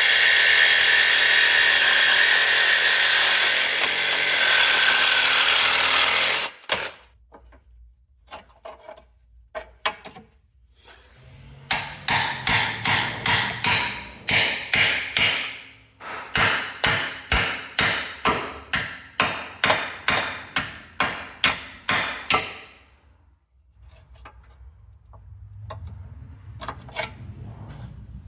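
A power tool runs steadily at one speed for about six seconds, then stops. After a few scattered knocks, hammer blows fall in a steady run, about two a second, for around ten seconds.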